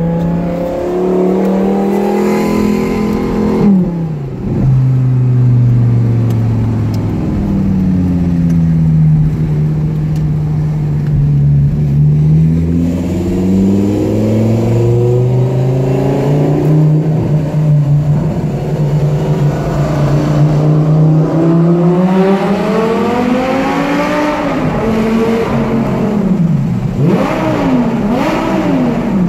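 Lamborghini Gallardo LP570's V10, exhaust valves held open by a muffler bypass, heard from inside the cabin. Its pitch climbs, drops sharply about four seconds in, holds steady while cruising, then climbs hard again. Near the end it gives several quick revs up and down in a tunnel.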